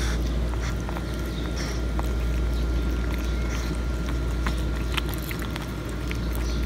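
Kittens chewing and crunching fried tilapia, a scatter of small wet clicks and crunches, over a steady low rumble.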